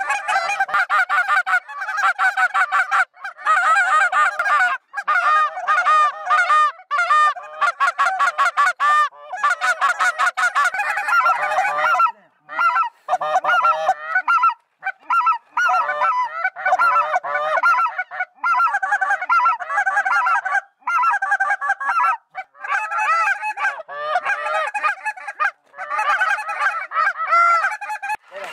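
A large flock of geese honking and calling, many voices overlapping almost without a break, with a few short lulls.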